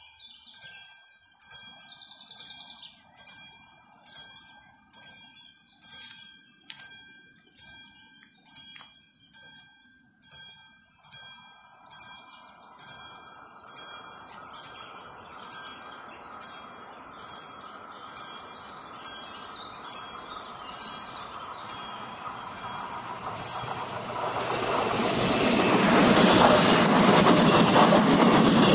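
Level-crossing warning bell ringing with regular, evenly spaced strokes. From about halfway an approaching passenger train grows steadily louder, and it rumbles past the crossing near the end, drowning the bell.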